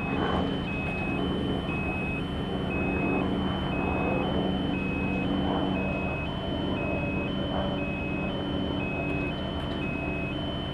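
Two-tone electronic warning alarm, alternating high and low beeps at about one pair a second, over a steady low hum.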